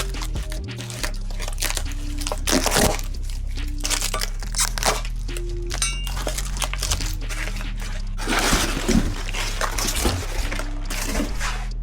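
Background music with a steady bass line, over scattered light clicks, clinks and rustling from hand work on engine parts, with a longer rustle about eight seconds in.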